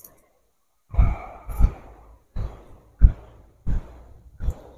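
Footsteps of a person walking on grass, about one and a half steps a second, each a dull thud with a short rustle.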